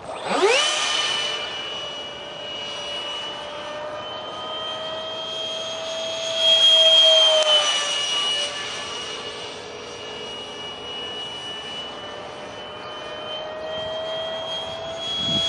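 Detrum 70 mm electric ducted fan of an RC foam jet in flight, spooled up sharply at the start with a fast rising whine, then a steady high whine. It is loudest around the middle as the jet passes close, then drops slightly in pitch. It spools up again just before the end.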